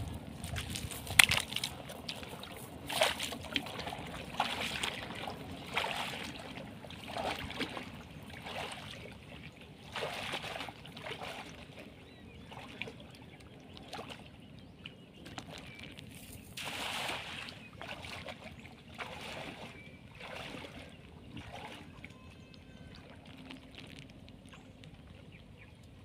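Sloshing splashes of a person wading through knee-deep floodwater, one with each stride at about one a second, growing fainter and sparser as he moves away.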